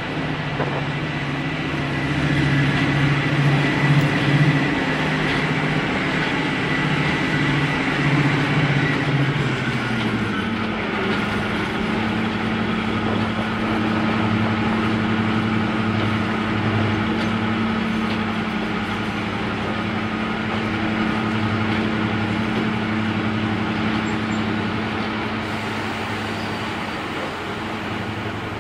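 Class 55 Deltic locomotive's twin Napier Deltic two-stroke opposed-piston diesel engines running under way, heard close up from the cab side. The engine note shifts to a different pitch about ten seconds in and then holds steady.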